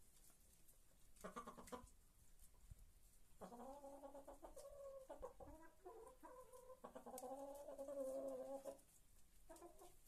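Chickens calling faintly in the coop: a short call about a second in, then a run of long, drawn-out calls lasting several seconds, and a couple of short calls near the end.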